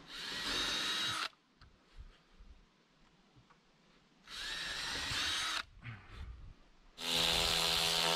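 Power drill running in three short bursts of a second or so each, spinning up with a steady high whine and stopping sharply between them.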